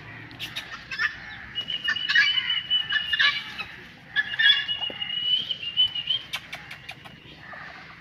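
A backyard flock of fowl and birds calling: scattered short chirps and clucks, with two long, steady high notes, one about a second and a half in and another about four and a half seconds in.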